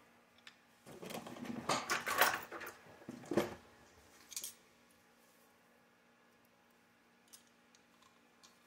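Small metal screws and hardware clinking and rattling as they are picked through by hand, with plastic RC buggy parts knocking, for about two and a half seconds. Then a single click and a few faint ticks.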